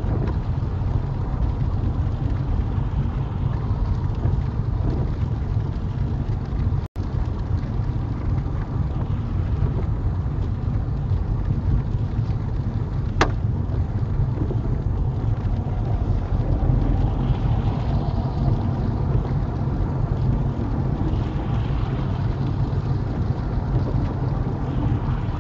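Steady road noise inside a small car driving on a wet motorway: a low rumble of engine and tyres with a hiss of spray and rain over it. The sound drops out for an instant about seven seconds in, and a single sharp click comes about thirteen seconds in.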